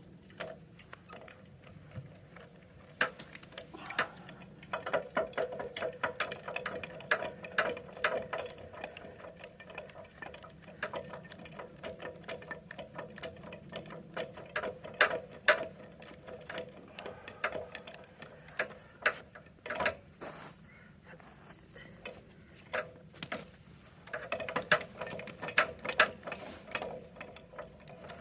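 Rapid mechanical clicking and sharp metallic knocks, in two dense runs, with scattered single knocks between.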